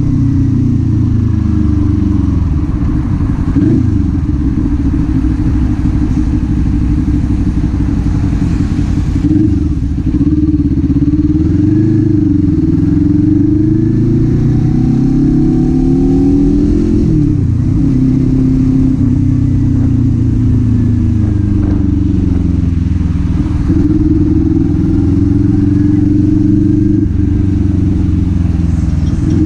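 Kawasaki Z400 parallel-twin engine and exhaust under way, its pitch rising and falling repeatedly as the throttle is opened and eased off, with a quick drop and pickup about two-thirds of the way through.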